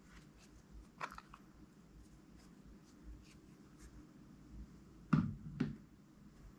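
Faint clicks as a plastic spoon scoops and pours thick white slime ingredient, with a sharper click about a second in and two soft knocks about half a second apart near the end as the spoon and containers are handled.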